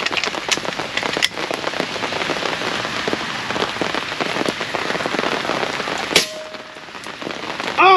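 Heavy, steady rain pattering on a canopy tent, with a single sharp shot from an AGT Vulcan 3 PCP air rifle firing a .25 calibre slug about six seconds in.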